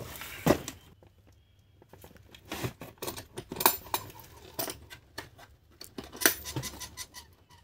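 Hard plastic tool carry case being slid out of its cardboard box and set down, with scattered knocks, clicks and scrapes of plastic on cardboard.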